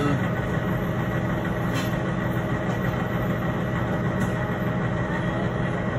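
Steady low mechanical hum of background equipment, with a faint steady high whine over it.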